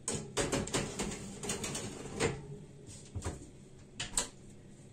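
A metal baking tray of pizza clattering as it is slid into a home oven, then the oven door knocking shut, followed by two separate clicks.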